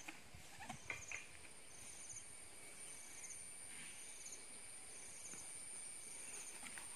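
Insects in grassland: a steady high-pitched buzz, with a short pulsed chirp repeating about once a second. A few faint clicks come in the first second or so.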